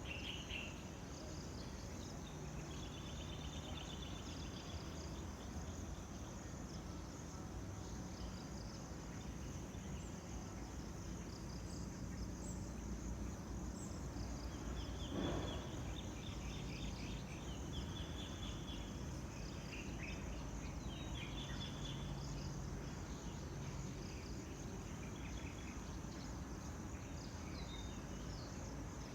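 Tropical insect chorus, a steady high continuous trill, with short trilling chirps of birds coming and going over it. About halfway through, one whistled call falls steeply in pitch, the loudest moment.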